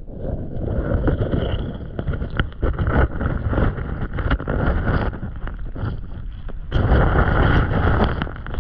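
Shallow creek water sloshing and splashing while rocks are lifted and flipped in the streambed, with many short knocks and clunks and wind buffeting the microphone. The noise gets louder for a moment near the end.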